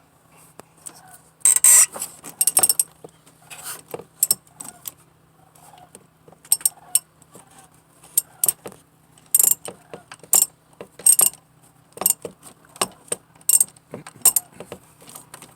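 Ratchet with a 10mm socket clicking in short, irregular runs of sharp metal clicks as a stiff bolt is worked loose.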